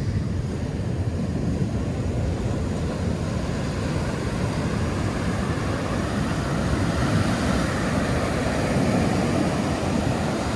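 Ocean surf washing onto the beach, with wind rumbling on the microphone; the wash grows a little fuller in the second half.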